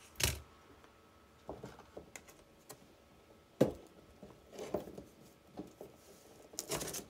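Small metal parts of a Fiat 126 starter solenoid handled and set down on a cardboard-covered workbench: scattered light clicks and taps, with the sharpest knock about three and a half seconds in.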